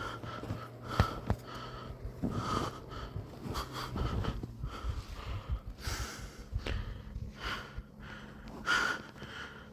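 A person breathing hard while trudging through deep snow, with irregular crunching and rustling and a few sharp clicks.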